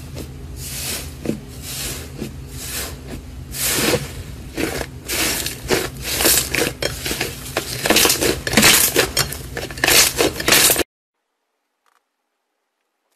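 Hands squeezing and pressing slime, giving a dense run of crackles and pops. The sound cuts off abruptly about eleven seconds in.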